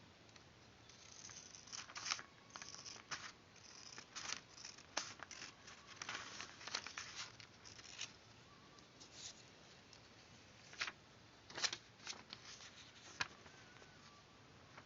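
Scissors cutting paper in short, irregular snips, with a few sharper snips standing out about two, five, twelve and thirteen seconds in.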